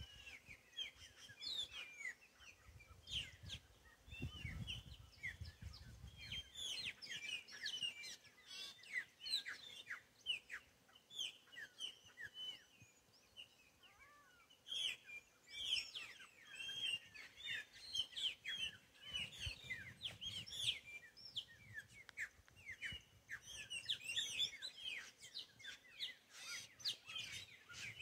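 A chorus of many birds chirping and singing together: a dense stream of short, high, downward-sliding chirps and whistles. A low rumble sits under it about three to six seconds in.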